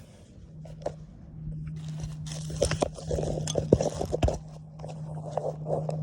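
Handling noise: irregular clicks, knocks, scrapes and crunches, busiest in the middle, over a steady low hum. No shot is fired.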